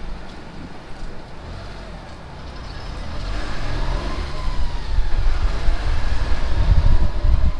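Jeepney engine and road noise as the jeepney picks up speed. A low rumble grows louder from about halfway through, with a faint whine rising in pitch and then holding.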